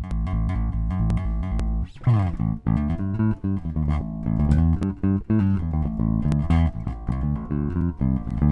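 Bass guitar played as a level check after its input gain has been raised. It plays a rapid repeated low note, slides down about two seconds in, then plays a line of varied notes.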